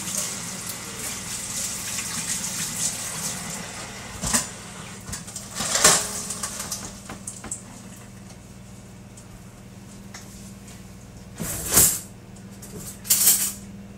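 Kitchen tap running into a sink, easing off about halfway through, with several sharp knocks and clatters. A steady low hum underneath.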